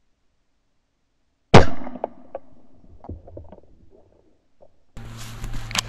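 A single loud rifle shot about a second and a half in, sharp and dying away over half a second, followed by faint clicks and rustling. About five seconds in, a low steady hum begins, with a few sharp knocks.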